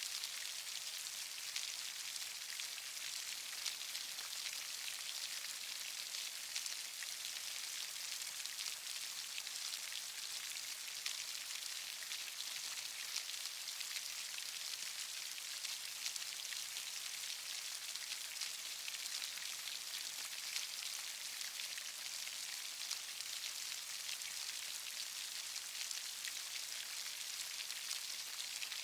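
Steady rain with dense, fine drop ticks pattering on a surface, a constant hiss without pauses.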